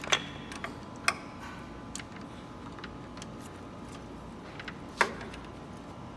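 Sharp metallic clicks and taps from hand tools on a Mini Cooper S engine as the camshaft sprocket bolts are snugged up gently before final tightening; single clicks a second or more apart, the loudest just after the start, about a second in and about five seconds in.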